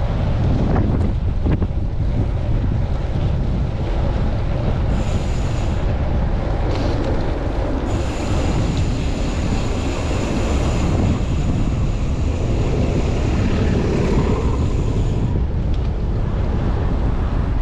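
Strong gusting wind buffeting a chest-mounted camera's microphone on a moving bicycle, a loud, continuous low rumble. A faint high-pitched whine of several tones comes in briefly about five seconds in and again from about eight to fifteen seconds.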